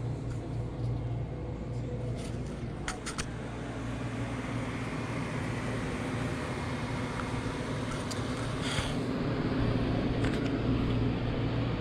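Amana PTAC air conditioner running: a steady low hum with fan noise, swelling slightly louder near the end.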